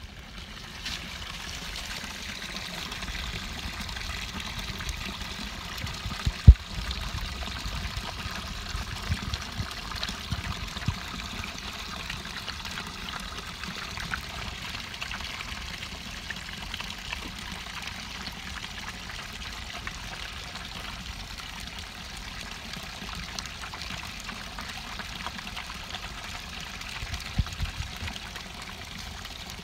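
Spring water pouring steadily from a pipe onto rocks, a continuous splashing trickle. A sharp low thump about six and a half seconds in, and a few softer ones near the end.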